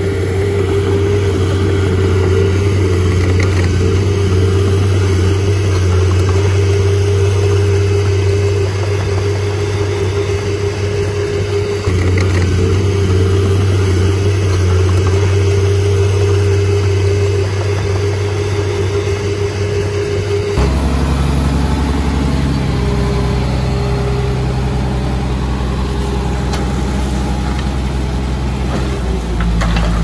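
Heavy earthmoving machinery's diesel engine running steadily. About two-thirds of the way through it shifts abruptly to a deeper drone.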